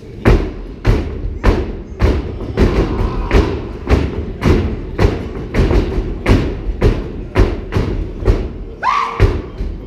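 Step team stepping in unison: heavy stomps on a hollow stage riser with hand claps, in a steady rhythm of about two beats a second.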